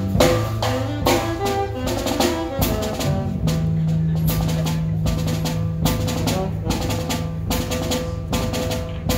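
Upbeat dance music with a steady drum-kit beat, about four hits a second, over a held bass line and melody.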